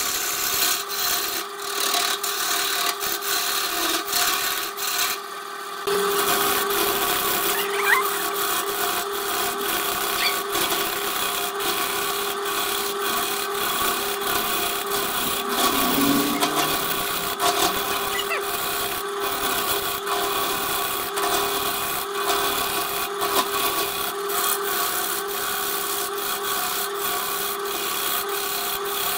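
BURT wood lathe running while a turning gouge cuts a spinning wooden blank: a continuous cutting noise over the lathe's steady motor hum. The cut eases briefly about five seconds in, then picks up again.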